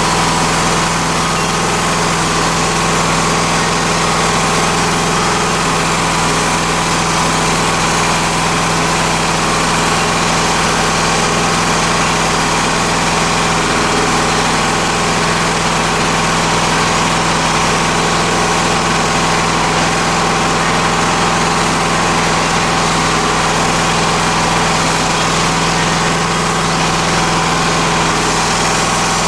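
Mi-T-M CW-3004 pressure washer running steadily after its rebuild, its engine holding an even, unchanging pitch with a constant hiss over it.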